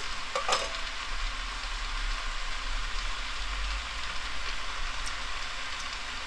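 Rehydrated dried eggplant sizzling steadily in an oiled frying pan, with one light click about half a second in.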